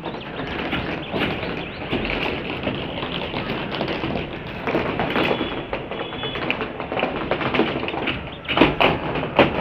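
PVC conduit pipes being handled on steel rebar mesh: irregular light tapping and clattering, with a few louder sharp clacks close together near the end.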